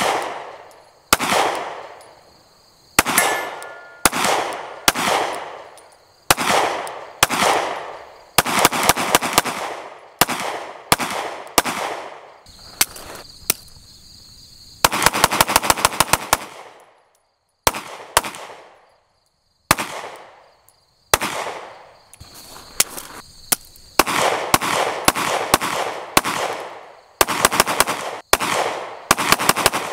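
Glock 43X 9mm pistol being fired repeatedly, some single shots about a second apart and some quick strings of several rounds, each sharp crack trailing off in a short ringing echo.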